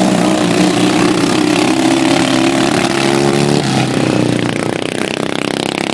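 Engines of two racing riding lawn mowers running as they pass, with a steady engine note whose pitch shifts about three and a half seconds in.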